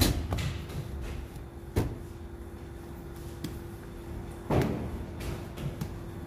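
Bakery work noise: three sharp knocks, the first at the very start, then about two seconds and four and a half seconds in, over a steady machine hum.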